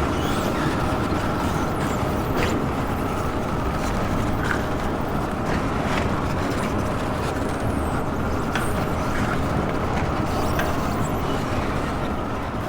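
Steady roar of jet engines and rushing air inside an airliner cabin, with faint steady tones and a few small clicks.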